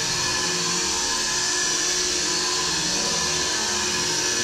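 A steady, loud whir of a small electric motor blowing air.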